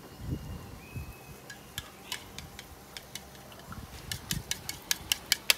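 A fork beating raw eggs in a bowl, its tines clicking against the bowl's side. It starts with a few scattered taps, then settles into a quick, even rhythm of about five clicks a second from about four seconds in.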